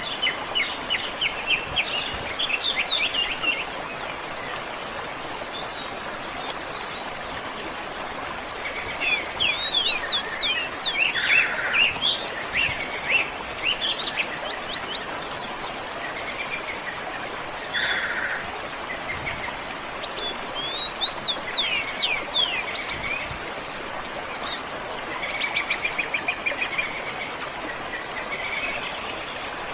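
Several birds calling and singing over the steady rush of a waterfall, with quick rising whistles and bursts of rapid trills coming and going throughout.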